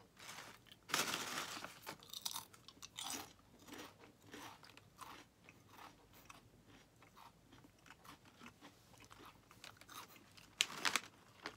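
Crunching and chewing on a crisp seasoned dried-fish wafer snack: a string of irregular crunches, loudest about a second in, with another loud crunch near the end.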